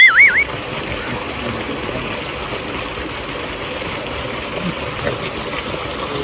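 Tubewell water gushing steadily into a concrete tank. At the very start comes a short, loud warbling tone that wobbles up and down in pitch.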